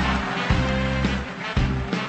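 Live band playing, with a drum kit and bass guitar: sustained bass notes with sharp drum hits landing about every half second.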